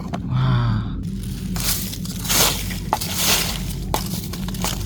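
Hands scraping and rustling through soil and debris, a crackly crunching with a few sharp clicks.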